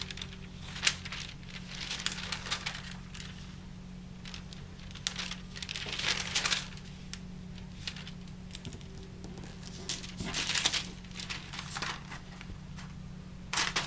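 A sheet of tracing paper rustling and crinkling in several short bursts as it is lifted and laid back down by hand, over a faint steady low hum.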